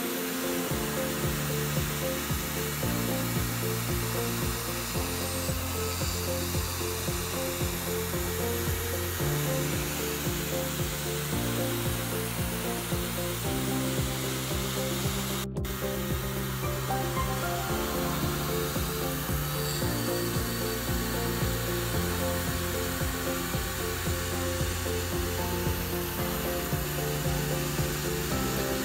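Tormach PCNC 770 CNC mill's end mill cutting aluminium at 7000 RPM: a steady machining noise, heard under background music. The sound cuts out for an instant about halfway through.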